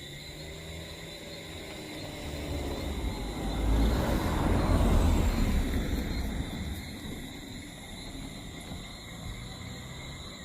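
A motor vehicle driving past on the road: its engine and tyre noise swell, peak about halfway through, then fade away.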